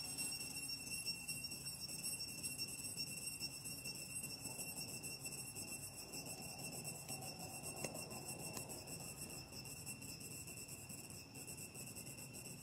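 Insects singing in a steady, high-pitched chorus with a fast flutter, with a single faint click about eight seconds in.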